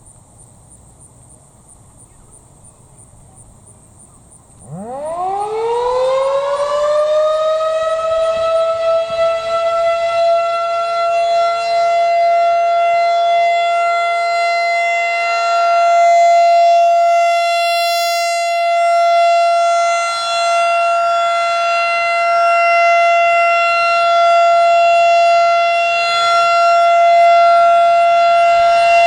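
Federal Signal 2001-SRN outdoor warning siren (second generation) starting up about four and a half seconds in. Its pitch winds up quickly and levels off within a few seconds into one steady loud tone, held with only slight swells in loudness: the steady Alert signal.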